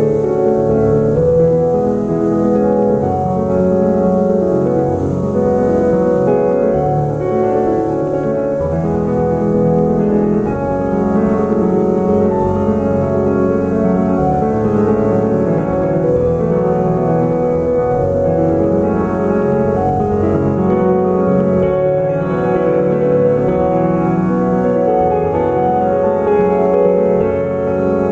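Background piano music, many notes overlapping at a steady level.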